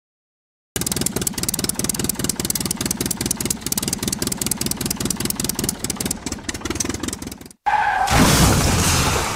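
Dubbed engine sound effect for a toy tractor: a motor running with a fast, even clatter, starting abruptly about a second in. Near the end it cuts off and a louder noisy burst with a short falling tone takes over as the tractor leaps off the ramp.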